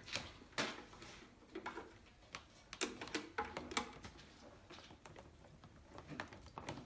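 Light handling noises from clear plastic water hoses and a submersible cooling pump being set in a plastic tub of water: a scattered series of faint clicks and knocks, a few louder ones about three to four seconds in.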